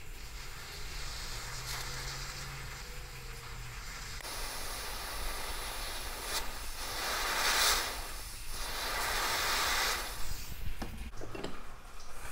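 MAPP gas hand torch burning with a steady hiss while its flame heats a splined pinion gear on a motor shaft to soften the glue holding it. The hiss grows louder about four seconds in, swells and dips a few times, and stops near the end, followed by a few light knocks.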